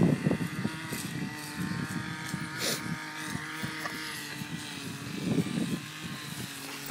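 A steady engine hum that holds one pitch throughout, with some rustling noise over it.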